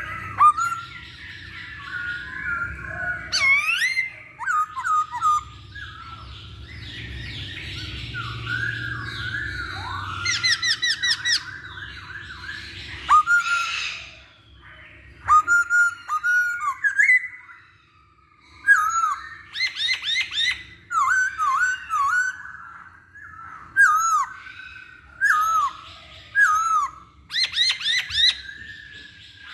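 Black-throated laughingthrush (poksay Hongkong) singing a loud, varied song: repeated downward-slurred whistles mixed with fast chattering phrases, with a brief lull a little past the middle.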